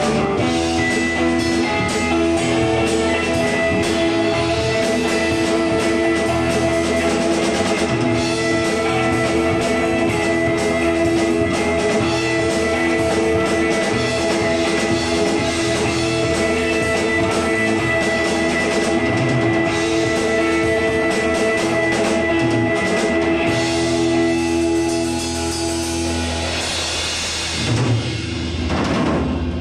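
Live instrumental rock from a small band: electric guitar and bass guitar holding sustained notes over a drum kit with steady cymbal work. Near the end the held notes drop away and a low drum hit sounds.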